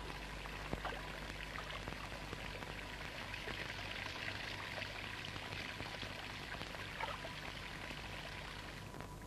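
Tap water running in a steady stream into a basin, easing off near the end.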